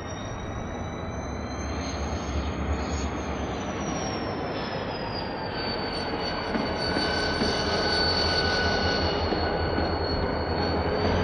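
Freight train rolling on jointed track with its wheel flanges squealing. The high squeal glides up and then down while the rumble slowly gets louder as the train draws nearer.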